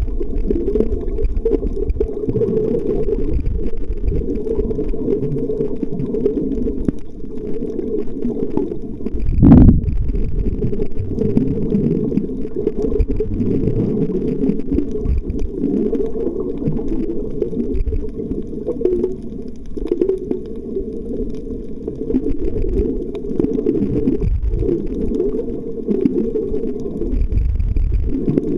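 Muffled underwater rumble of water moving around a submerged camera in its waterproof housing, with one louder thump about nine and a half seconds in.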